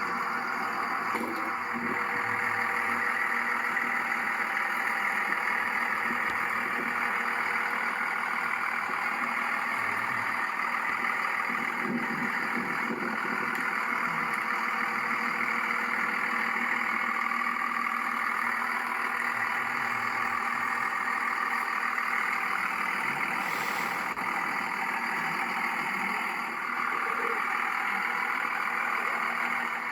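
Cummins 5.9-litre inline-six turbo diesel of a 1998 Dodge Ram 2500 idling steadily.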